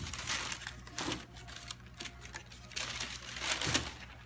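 Rustling and clattering of a sneaker and its packaging being handled, in several short bursts.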